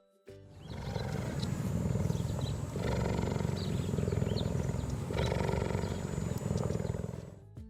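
Big cat growling, a recorded animal sound effect, in about three long, rough stretches.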